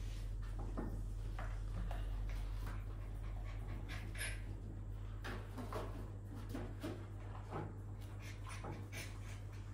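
Short animal sounds among scattered light clicks and knocks, over a steady low hum.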